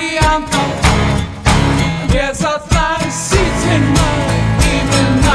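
Russian rock song slowed down and drenched in reverb: drums hitting steadily under guitar.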